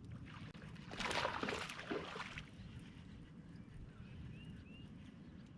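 Water splashing for about a second and a half as a hooked largemouth bass thrashes on the line, over a steady low rumble; a bird gives two short chirps near the end.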